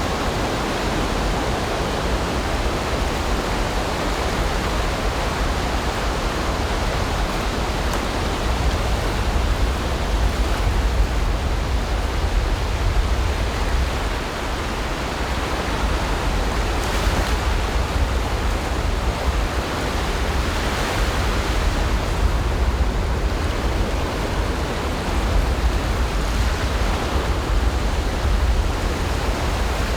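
Ocean surf washing on a beach: a steady, unbroken rush of waves with a deep rumble underneath.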